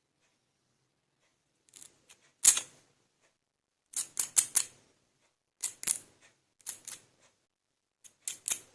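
Hard plastic clicking and tapping, in five short bursts of a few quick clicks each, with silence between: toy pieces being handled and set down.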